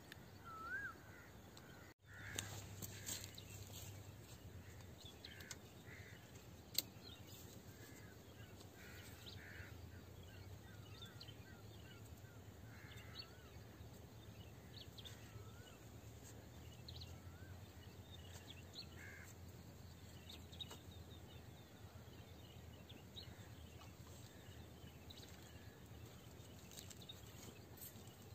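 Faint outdoor ambience with birds calling: scattered short chirps and wavering calls, over a low steady hum. A single sharp click stands out about seven seconds in.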